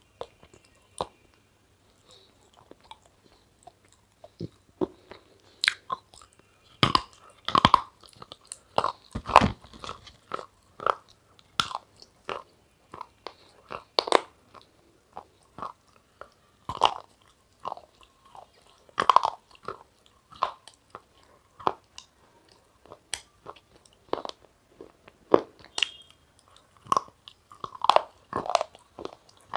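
Close-miked eating: a person biting and chewing crunchy food, with irregular sharp crunches. The crunches are sparse at first, then come louder and more often from about a quarter of the way in.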